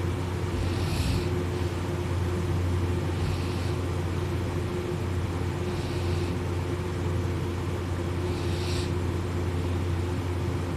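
A sleeping person snoring: four noisy breaths about two and a half seconds apart, over a steady low drone.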